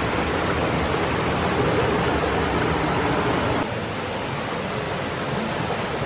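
Mountain stream water running over rocks, a steady rushing hiss that drops slightly in level about three and a half seconds in.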